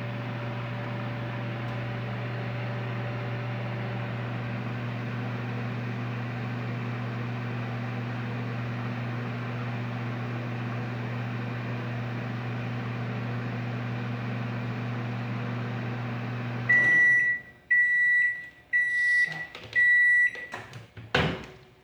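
Microwave oven running with a steady hum while the dish turns inside. Near the end it shuts off and gives four short, high beeps about a second apart, signalling the heating cycle is done, followed by a sharp knock.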